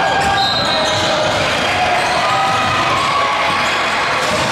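A basketball being dribbled on a hardwood gym floor during live play, with short high squeaks and distant voices echoing in the large hall.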